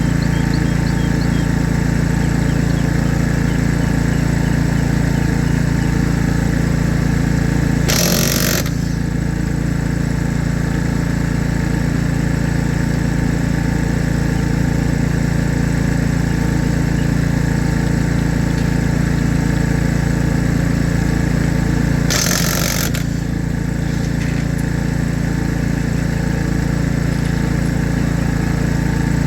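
An engine running steadily at idle, with two short noisy bursts about eight seconds in and again about twenty-two seconds in.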